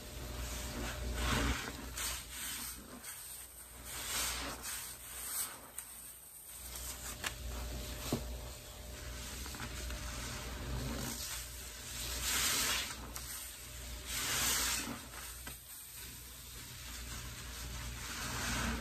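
Sponges soaked in sudsy pine-cleaner water being squeezed and worked: wet squishing and the sizzling fizz of the suds, rising and falling in several swells. There is a sharp click about eight seconds in.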